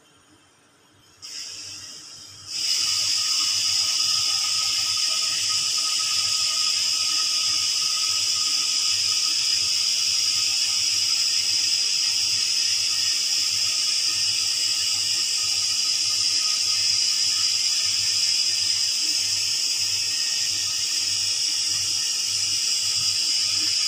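A loud, steady hiss comes on in two steps within the first three seconds and then holds evenly.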